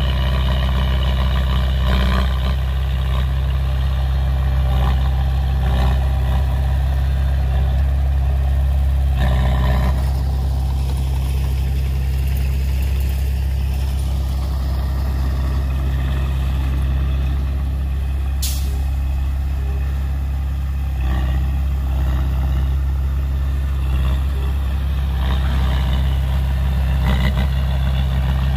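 Heavy diesel engine of earthmoving machinery running steadily with a deep drone, with a few brief surges and one short high hiss a little past the middle.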